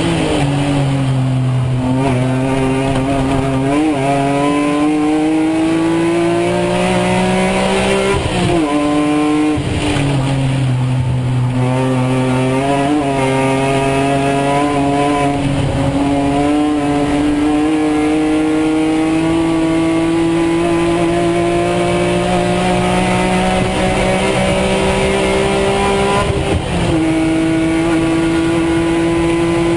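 BMW Z4 M Coupé race car's straight-six engine heard from inside the cabin, running hard under full acceleration. Its note climbs slowly through long pulls and drops sharply at three upshifts: right at the start, about eight seconds in, and near the end.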